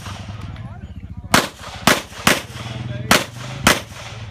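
Five pistol shots from a 9mm Glock 34: three in quick succession, then two more after a short pause.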